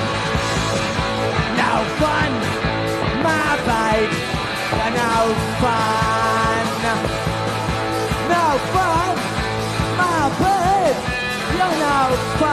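Live punk rock band playing a song: distorted electric guitar with sliding, bent notes over bass and drums.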